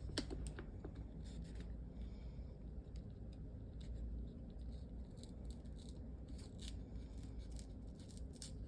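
Faint handling noises of a journal and its plastic wrapping: scattered light rustles, scrapes and small clicks over a low steady room hum.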